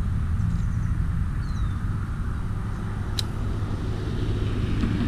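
Steady rumble of road traffic, with one sharp click about three seconds in.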